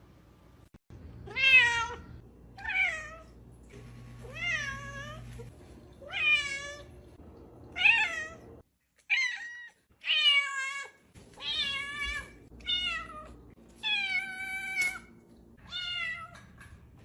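A cat meowing over and over, about a dozen separate meows, most of them rising and then falling in pitch.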